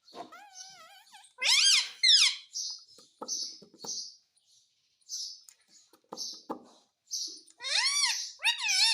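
Pet parrot calling and chattering. It gives a few drawn-out squawks that bend up and down in pitch near the start and again near the end, with short hissy chirps and clicks in between.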